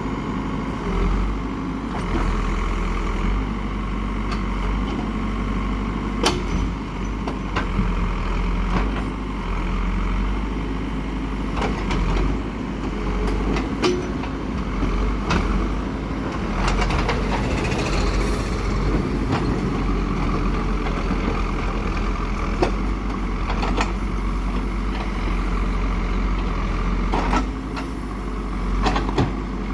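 Heavy diesel construction machine running steadily with a deep engine drone, with occasional sharp knocks.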